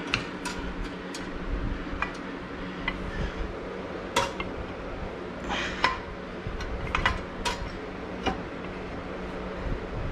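Metal parts clanking and knocking against each other, about a dozen sharp irregular clinks, over a steady low hum, as an engine is set and shifted into place on a small steel four-wheeler frame.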